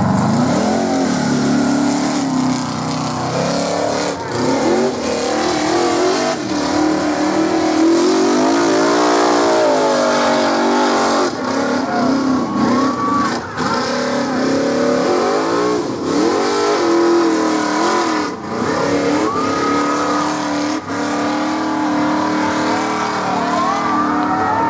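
Rock bouncer buggy's engine revving hard under load as it climbs a steep, muddy hill, the revs rising and falling over and over.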